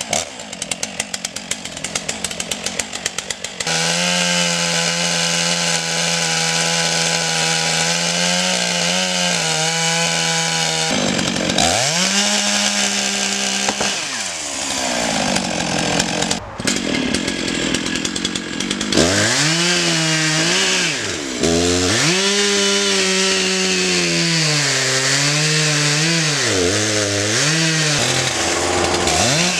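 Stihl MS661 two-stroke chainsaw idling with an even pulse, then opened to full throttle about four seconds in and cutting into a large beech trunk. Through the rest, the engine's pitch repeatedly drops and rises again as the chain loads up in the cut.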